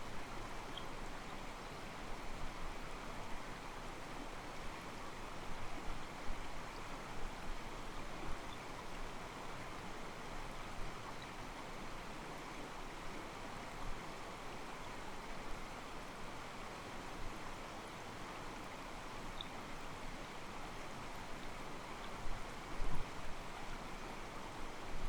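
Mountain stream flowing steadily over rocks, water sloshing and babbling with small splashes.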